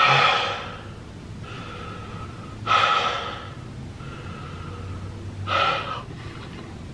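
A man breathing heavily through his open mouth: three loud breaths about three seconds apart, with quieter breaths between, each carrying a thin whistle. It is laboured breathing from someone who says he has chest pains and can't get enough air.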